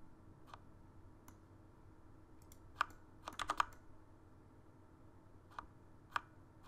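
Scattered clicks from a computer keyboard and mouse: a few single clicks and a quick run of four or five about halfway through, over a faint steady hum.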